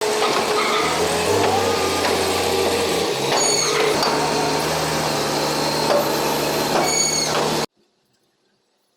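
Heavy vehicle running loudly, with a steady low engine drone, a hiss and two brief high squeals, cutting off suddenly near the end.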